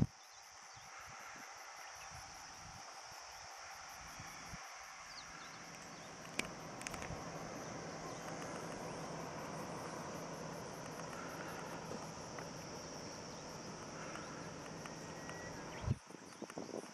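Insects singing in a steady, high, even drone, over a background rush that grows louder about six seconds in. A single knock near the end.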